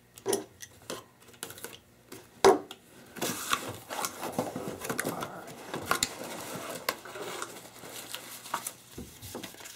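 Cardboard box being handled and opened on a wooden table. There is a sharp knock about two and a half seconds in, then flaps are lifted and paper and plastic packaging rustle, with a few lighter knocks.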